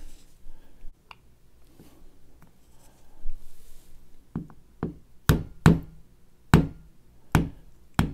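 Series of sharp knocks, about seven in the second half, as a small pin punch is worked against the ejector roll pin of an AR-15 bolt to drive it out the bottom. A few faint clicks come first, as the punch is set in place.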